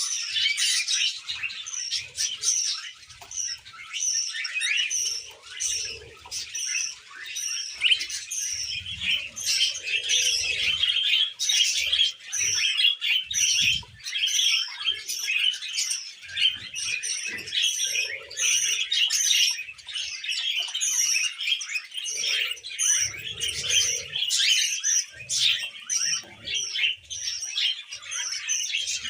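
Budgerigar chirping and chattering without pause: a busy warble with a steady string of short, high chirps repeated about twice a second.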